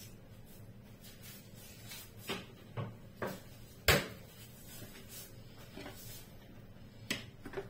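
Scattered light knocks and clicks of kitchen handling, with one sharp knock about four seconds in. Near the end a knife taps on a plastic cutting board as a garlic clove is sliced.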